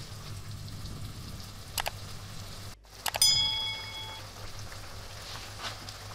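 Capcay broth simmering in a wok, a faint patter over a low steady hum, with a single clack about two seconds in. About three seconds in, after a brief dropout, a click and a short bell-like chime ring for about a second: the sound effect of a subscribe-button animation.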